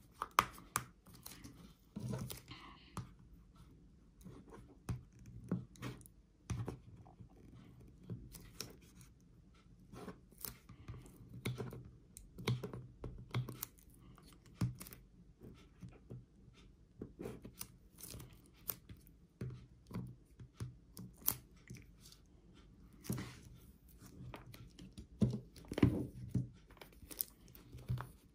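Fingernails scratching and picking at the edges of a cardboard Apple Watch box, with irregular taps and rubbing of hands on the cardboard as someone tries to prise it open.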